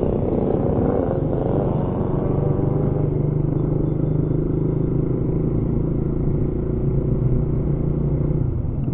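Motorcycle engine running while the bike is ridden. Its pitch climbs over the first three seconds as it accelerates out of a turn, holds steady while cruising, then eases off shortly before the end.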